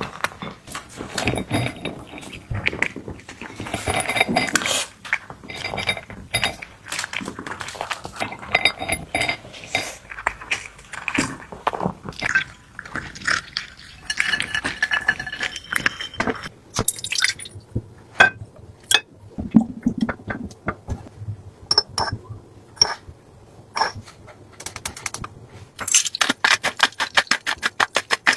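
Kitchen utensils clinking and tapping against dishes, with liquid sounds, while cat food is prepared. A fast run of taps comes near the end.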